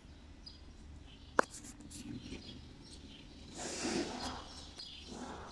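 Quiet room background with one sharp click about a second and a half in, and a brief soft noise near four seconds.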